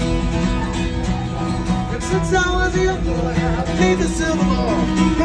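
Country-style music: a strummed acoustic guitar, with a voice singing along from about two seconds in.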